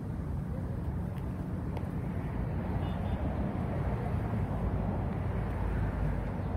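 Heavy diesel road-construction machinery running, a steady low rumble.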